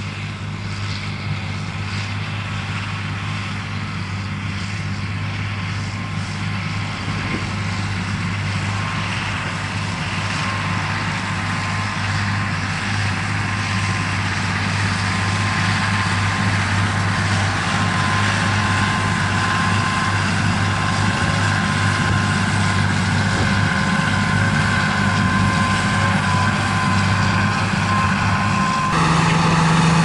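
Large John Deere farm tractor's diesel engine running steadily as it works the hayfield, growing gradually louder as it comes closer, with a thin steady whine joining about a third of the way in and the sound jumping up abruptly near the end.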